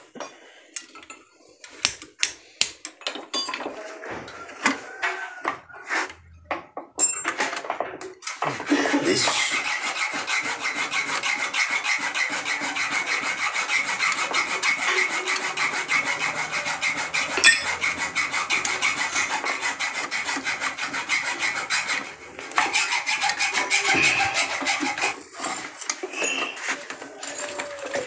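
Hand tools working on a Suzuki Escudo's steering-column bushing to free it: scattered clicks and knocks for several seconds, then a long, rapid rasping scrape, with a short break near the end, and a few more clicks.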